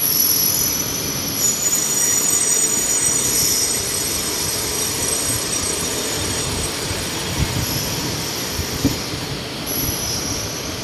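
Yellow Line monorail train running past, a steady rush with a high-pitched whine that sets in suddenly at the start and is strongest over the first few seconds.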